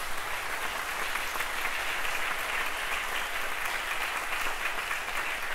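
Concert hall audience applauding steadily, a dense even clapping.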